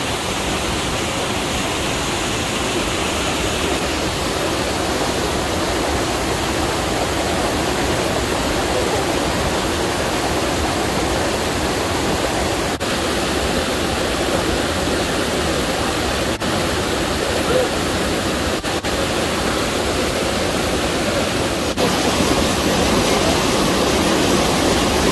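River water rushing and churning over rocks in a small cascade into a natural pool, a steady loud rush that grows a little louder for the last few seconds.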